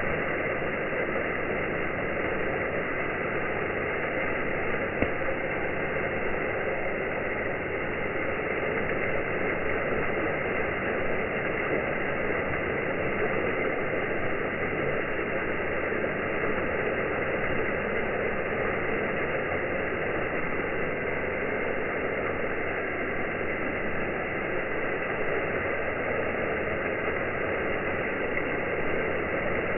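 Pond waterfall running: a steady rush of falling water, with one brief click about five seconds in.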